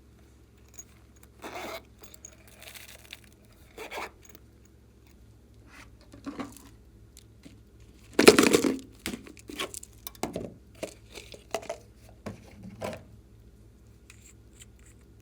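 Slime being stretched and worked by hand, giving a series of irregular crackling, tearing sounds, the loudest a little over eight seconds in, followed by several shorter ones.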